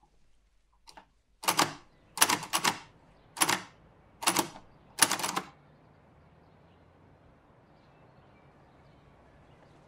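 Manual typewriter keys struck in six quick bursts of several strokes each, over about four seconds, after a few faint taps. Only a faint steady background hiss follows.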